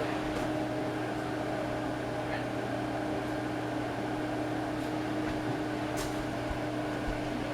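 Tatung Hugger ceiling fan running on high speed: a steady motor hum with a constant tone over the rush of the blades.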